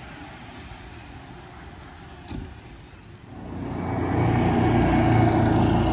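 A motor vehicle's engine grows loud about three seconds in and stays loud as it passes close by, after a stretch of quieter road noise.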